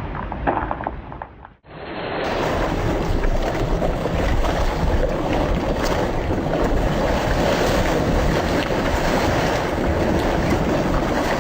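Steady, loud rushing of wind and surf, beginning right after an abrupt cut about two seconds in.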